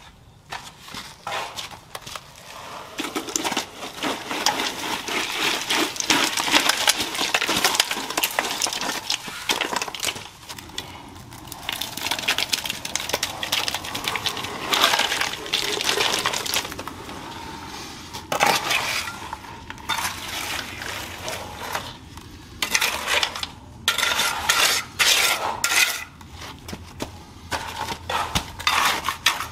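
Gritty scraping and clinking of hand tools working wet concrete mix for a poured sill, in irregular stretches with short pauses.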